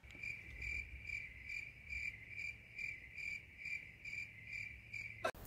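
A cricket chirping steadily, a short high-pitched chirp a little more than twice a second, over a faint low hum. It is cut off by a sharp click near the end.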